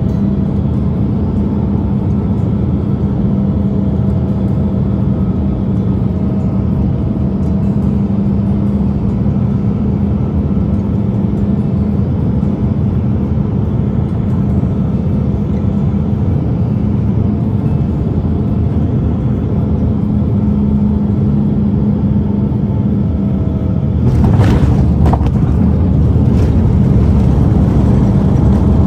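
Cabin noise of a jet airliner on final approach: a steady drone of engines and rushing air with a low hum. About 24 seconds in it turns suddenly louder and rougher as the wheels meet the runway.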